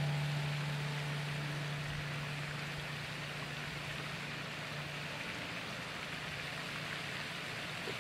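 Music's last held low note fading away over the first few seconds, leaving a steady, even hiss of outdoor ambience.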